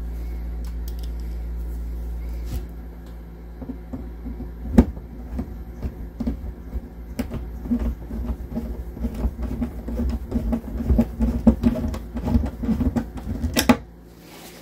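Sped-up sound of hinge screws being driven into an RV cabinet door: a steady mechanical hum for the first couple of seconds, then a quick run of clicks and clatter.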